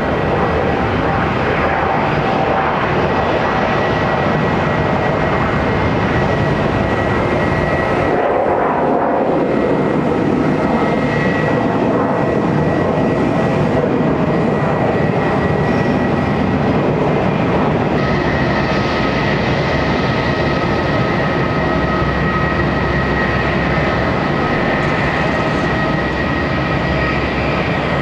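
Twin-engine jet airliner taking off: a loud, steady jet engine roar through the takeoff roll and climb. About two-thirds of the way in it gives way to a different steady, high-pitched jet engine whine, an Airbus A320 taxiing.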